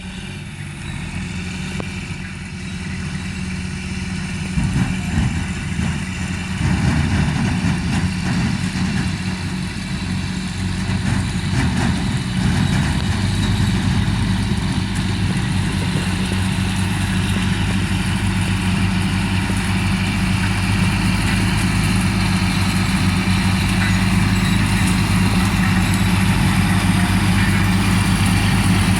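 Heavy diesel engine running steadily with a low hum, with irregular knocks and rattles mostly in the first half.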